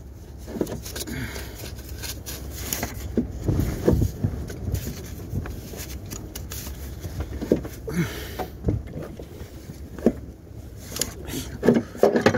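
Irregular knocks, clicks and rubbing as gloved hands work metal parts around a car's alternator in the engine bay, over a low rumble of handling noise close to the microphone.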